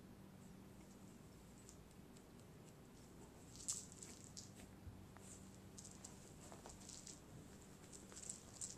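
Near silence with faint, scattered rustles and soft scratchy ticks from a cat wrestling and kicking at a small toy on carpet, the loudest about four seconds in. A faint low hum runs underneath.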